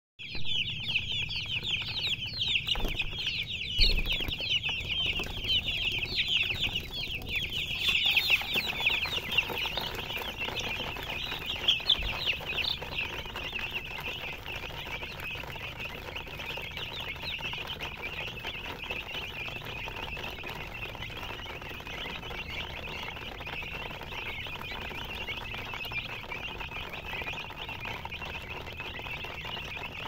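A crowd of domestic chicken chicks peeping all at once: a dense, unbroken chorus of short, high chirps, busier and louder in the first dozen seconds and then steadier. A couple of dull knocks come through about 4 and 12 seconds in.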